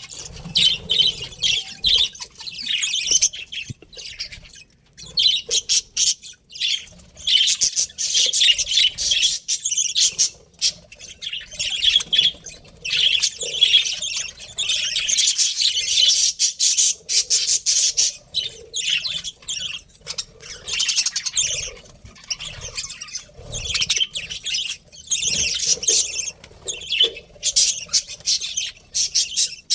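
A flock of budgerigars chattering, with many overlapping high chirps and squawks in an almost unbroken stream.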